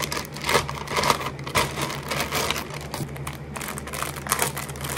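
Packaging crinkling and rustling as it is handled, in quick irregular crackles, with a steady low hum underneath.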